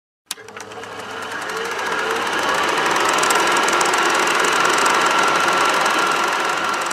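Electric crackling-and-buzzing sound effect: a sharp click, then a rapid crackle that swells over a few seconds and slowly fades.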